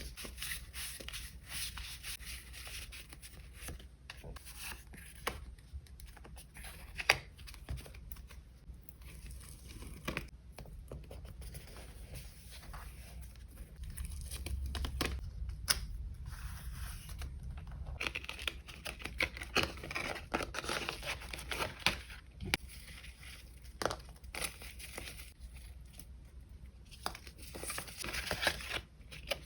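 Paper and sticker sheets handled close to the microphone: rustling and tearing, with light taps and clicks.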